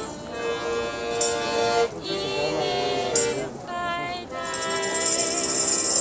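Piano accordion playing sustained chords, with a tambourine jingling; the jingle turns into a steady shake for the last second or so.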